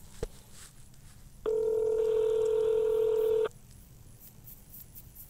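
Telephone ringback tone heard down the line while a call waits to be answered: one steady ring about two seconds long, starting about a second and a half in and cutting off sharply, with a short click just before it.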